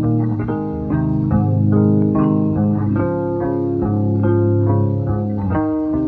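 Background music: a plucked guitar and bass guitar playing a steady melodic line.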